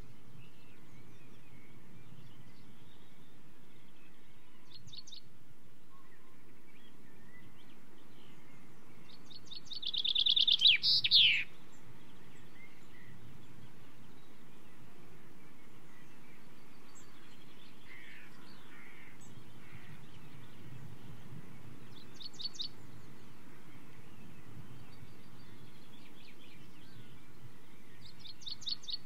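Common chaffinch singing: one loud song phrase about ten seconds in, a rapid run of high notes ending in a falling flourish. Fainter short bursts of high notes come a few times, over a steady low background noise.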